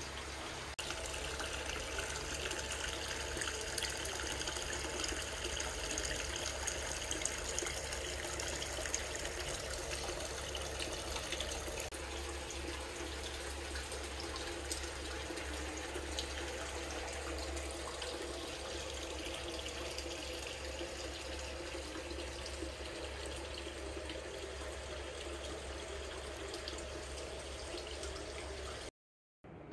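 Hot-spring water pouring steadily from a spout into a wooden open-air bath tub, a continuous splashing trickle into the filled tub. It cuts off suddenly near the end.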